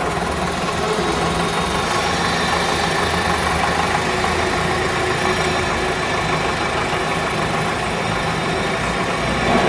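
Aircraft piston engines running, a loud, steady drone with no change in pitch.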